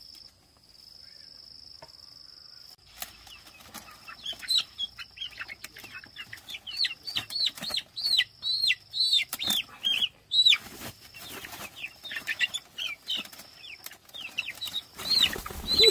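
Chicks peeping loudly and rapidly in distress as they are grabbed by hand from a woven bamboo basket, with wing flapping and rustling of the basket. A steady high insect buzz fills the first few seconds before the peeping starts.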